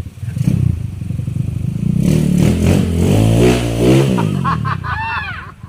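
Trail motorcycle engine revving: the pitch rises over about a second and a half, then falls back to a lumpy, pulsing run.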